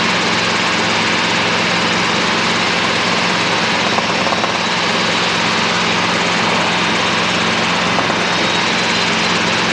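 Steady drone of a helicopter's engine and rotor heard inside the cabin in flight, a constant even noise with a low hum underneath.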